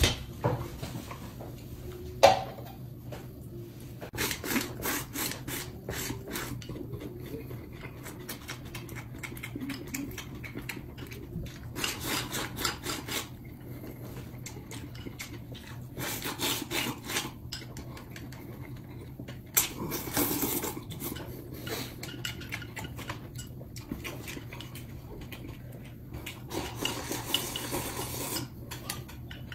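Eating sounds: chopsticks clicking and scraping against a porcelain rice bowl as rice is shoveled into the mouth, with chewing. There is a sharp knock a little over two seconds in.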